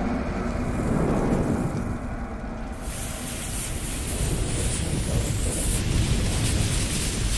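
Sound effects of a burning fuse and spreading fire: a low rumble with crackling hiss, which grows fuller and brighter about three seconds in.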